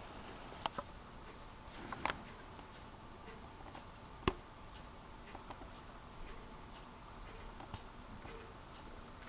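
Quiet room with a few scattered sharp clicks and light taps, the loudest single click about four seconds in.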